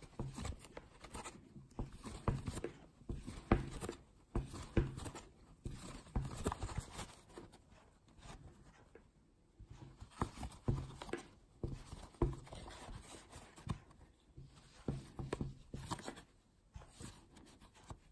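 Rustling of yarn and soft, irregular clicks of a metal crochet hook as single crochet stitches are worked by hand, close to the microphone.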